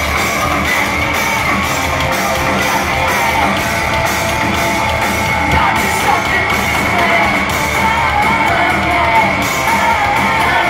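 Live rock band playing loud with electric guitars and drums, a voice singing over it, and the crowd yelling and whooping.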